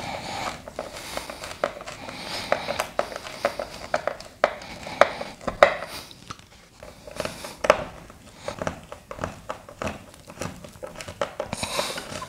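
Hand screwdriver turning the screws that fasten a stove power socket's base down to a plywood board: an irregular run of small clicks and scrapes, with a few sharper clicks in the middle.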